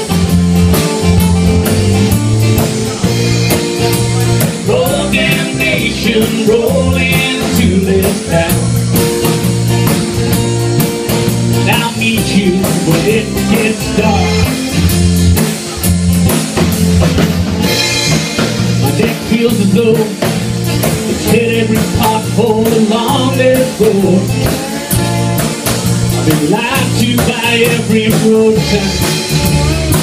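Live band playing: strummed acoustic guitars over a drum kit keeping a steady beat.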